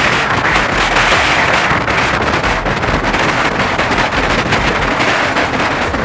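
Strong wind buffeting the microphone: a loud, steady rush with crackling gusts and low thumps throughout.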